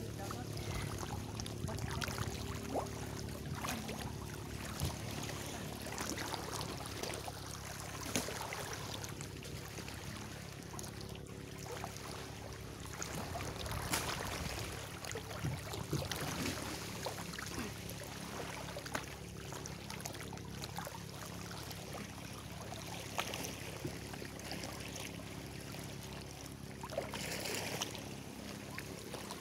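Shallow seawater sloshing and splashing around a person wading and bathing among rocks, with a steady low hum underneath.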